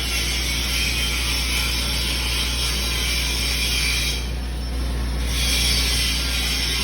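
Electric welding arc crackling steadily on carbon-steel pipe over a low hum. The crackle thins out for about a second a little past the middle, then picks up again.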